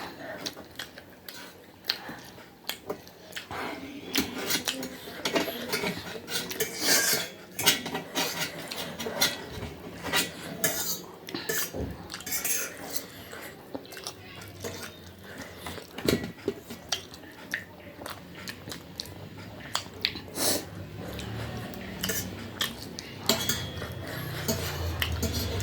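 Metal cutlery clicking and scraping against a bowl or plate while eating, in many short, irregular taps.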